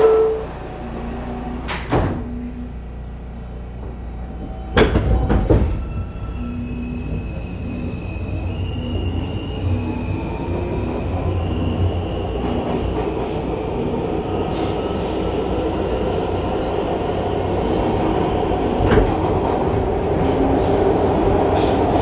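R160A subway car pulling out of a station, heard from inside: a few clunks as the doors shut in the first seconds, then the traction motors start a whine that steps and rises in pitch as the train accelerates. A low rumble of the wheels on the rails grows steadily louder underneath.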